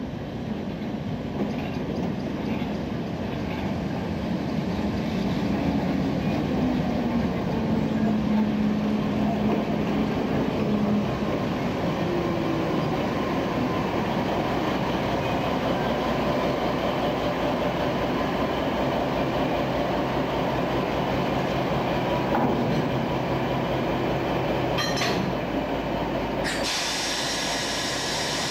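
SNCB class 80 diesel shunting locomotive running slowly past at close range. Its engine noise grows over the first several seconds as it approaches, then stays steady. A short burst of high-pitched noise comes near the end.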